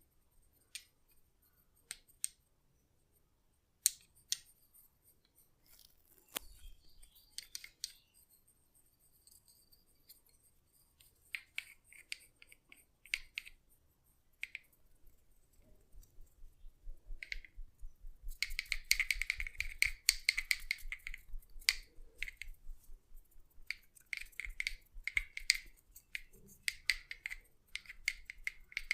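Sharp, close-miked clicks and snips, scattered and single at first, growing about two-thirds of the way in into a rapid, dense run that keeps going.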